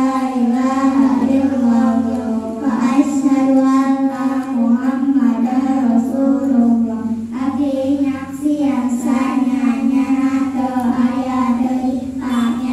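Young girls singing a song together in unison into handheld microphones, unaccompanied, in held, flowing phrases with brief pauses for breath.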